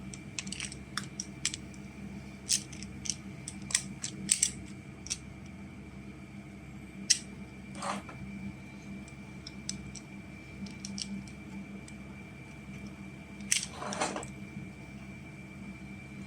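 Plastic magnetic building tiles and gear pieces clicking and clacking together as they are handled and snapped into place, in scattered sharp clicks with a small flurry near the end, over a faint steady hum.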